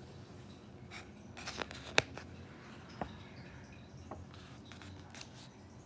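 Faint paper rustling and a few light clicks, the sharpest about two seconds in: a picture book's page being turned.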